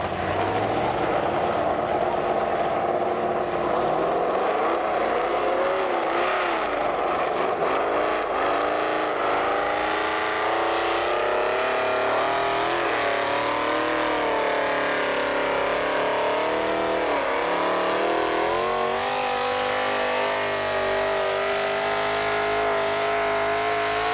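Modified pulling tractor's engine running at full throttle under load as it drags the weight sled. Its pitch wavers up and down as the load bites, then climbs and holds high near the end.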